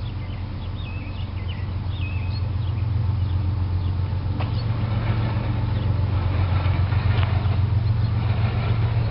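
Diesel locomotives hauling a BNSF coal train run past with a steady low engine drone. The drone grows louder over the first several seconds as the lead units come by.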